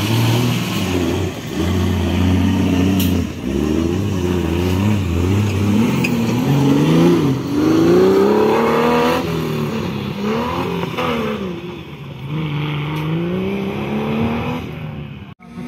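Offroad competition buggy's engine revving up and down again and again as it drives through the muddy course, its pitch rising and falling in repeated swells.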